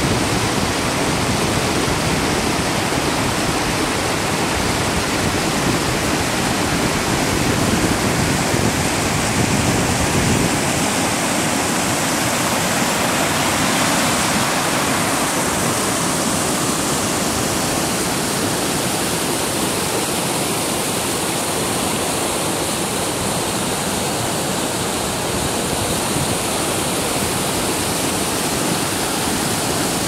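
Waterfall and river rapids rushing over rocks, a steady loud wash of white water. About ten seconds in the deepest part of the sound drops away, leaving the higher hiss of the churning rapids.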